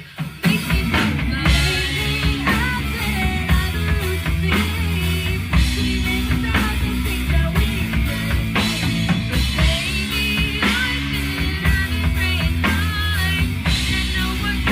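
Rock band playing: drum kit, bass guitar and electric guitar through a Marshall amp come in together right at the start and play on, with a female lead singer singing over them.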